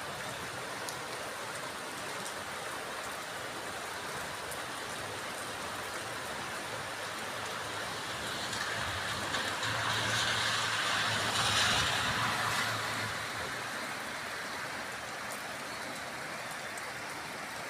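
Steady heavy rain from a thunderstorm. Midway, a vehicle passes on the wet road: a swelling hiss of tyres with a low engine hum that lasts a few seconds and then fades back into the rain.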